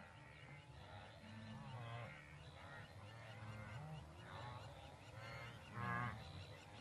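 A series of overlapping animal calls that rise and fall in pitch, over a low steady hum.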